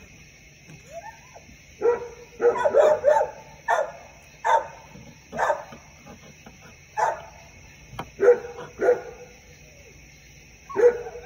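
A dog barking in short, sharp yips, roughly one a second, starting about two seconds in.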